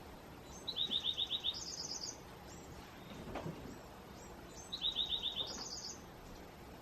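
A songbird singing the same two-part song twice: a quick run of about six notes, then a few more at a higher pitch. Each song lasts about a second and a half, the first about a second in and the second about four seconds later.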